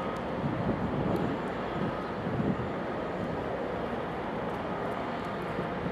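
Steady, even jet noise from the GE90 engines of a Boeing 777-200LR rolling out on the runway after landing.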